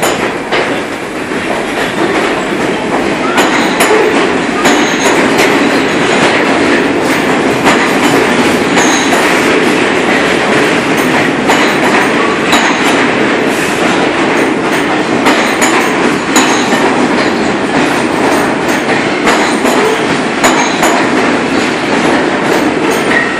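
Pullman-Standard R46 subway cars pulling out of the station and running past on the rails. A loud rumble of steel wheels builds over the first few seconds as the train picks up speed, with a steady run of clicks over the rail joints and brief high wheel squeaks.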